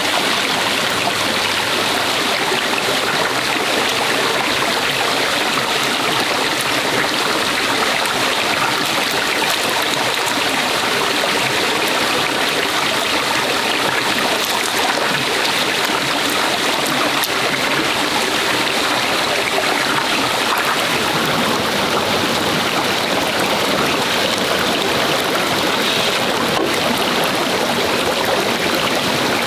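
A stream running, a steady rush and trickle of water.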